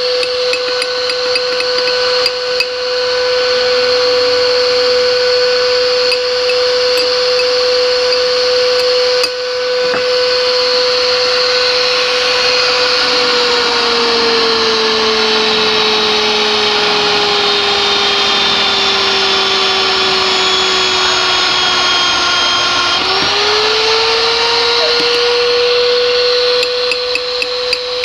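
Electric pipe-threading machine running steadily, cutting a thread on a steel RGS conduit pipe, with a strong motor whine. About halfway through the pitch sinks slowly, then jumps back up near the end, with a few light clicks at the close.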